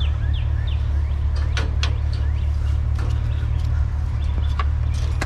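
Steady low rumble of an idling vehicle engine. Over it come a quick run of high, falling chirps in the first second, then scattered sharp knocks and clanks as scrap is handled.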